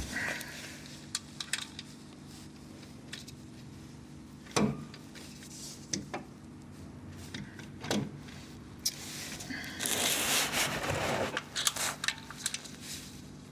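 Metal tool clinks, knocks and scrapes as a wrench is repositioned and turned to loosen a tight oil filter. Single clicks come every second or two, with a longer scraping rattle about nine seconds in.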